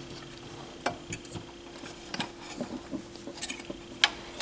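A few light clicks and taps of small metal parts being handled and fitted inside a turntable mechanism, with the sharpest click about four seconds in, over a faint steady hum.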